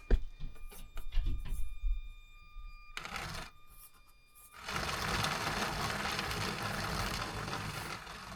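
Miniature electric RC rock crawler driving over a rough course. Scattered knocks and clicks of the tyres and chassis on the terrain in the first couple of seconds, then a short burst of its motor, and from about halfway in a steady whir of the motor and gears under load, over a faint whine.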